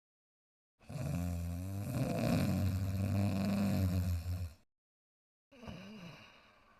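Cartoon dog snoring: one long, loud, rasping snore of nearly four seconds, then a shorter, quieter breath out near the end that fades away.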